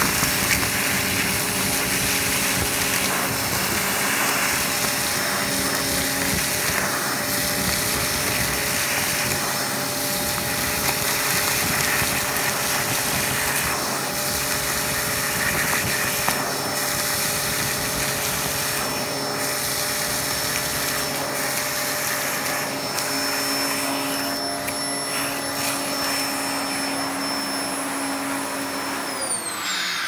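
Dyson DC04 upright vacuum cleaner running steadily, sucking loose dirt and grit off a rug through its crevice tool. Near the end the motor winds down, its whine falling in pitch.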